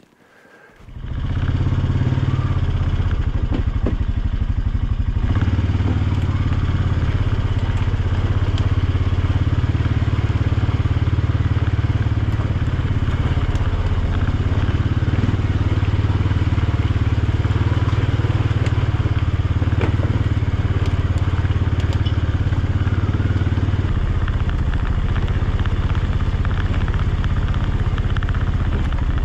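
ATV engine running steadily as the machine is ridden, starting about a second in.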